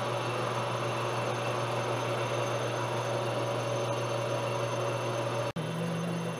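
Monarch model K engine lathe running steadily with a constant mechanical hum while a center drill is fed into the end of spinning steel stock. About five and a half seconds in, the sound cuts out for an instant and the lathe's hum resumes with a slightly higher tone.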